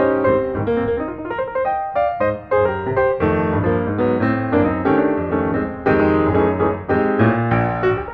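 Piano music: a run of struck notes and chords, several a second.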